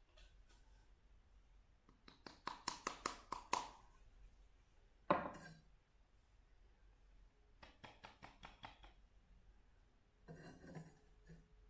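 Ceramic and wooden coffee-making gear handled by hand: a run of about eight quick taps, a single sharp knock about five seconds in, more light taps, and near the end a clatter as the ceramic pour-over dripper is set back onto its carafe.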